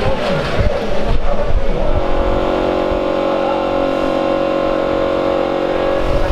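Procar 4000 race car's inline six-cylinder engine running; from about two seconds in it holds one steady note.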